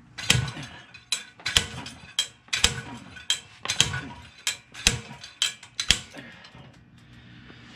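A GearWrench slide hammer puller striking its stop about eleven times, roughly two sharp metal blows a second, pulling a rear axle bearing and seal out of a GM 10-bolt axle housing. The blows stop about six seconds in.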